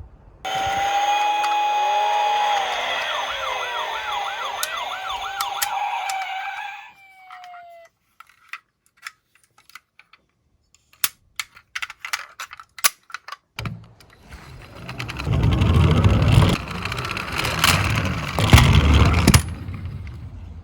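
Electronic toy police-car sirens wailing, several overlapping with a fast warble, then cutting off with a short falling tone. Scattered light clicks and taps follow, and from about two-thirds of the way through comes the rolling rumble of toy police cars running down a slope.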